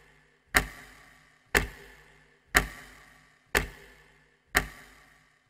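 Clock ticking steadily once a second, each tick sharp with a short fading ring.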